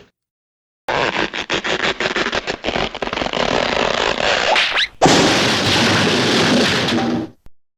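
Cartoon sound effects played back to back: a dense crackling, rumbling noise full of sharp pops, a short rising whistle, then a sudden louder blast of noise that runs about two seconds and cuts off.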